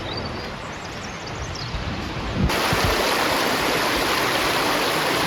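A quiet outdoor hiss with a few faint high chirps, then, with a sudden change about halfway in, a stream's water rushing steadily and louder.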